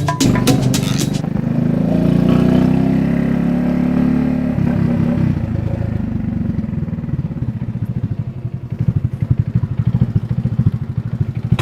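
Motorcycle engine running, steady at first and then settling into a fast, low, pulsing chug from about halfway on.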